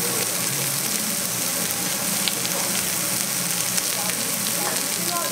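Lamb slices and vegetables sizzling on a hot ridged Hokkaido-style (jingisukan) grill pan: a steady frying hiss with a few sharp pops scattered through it.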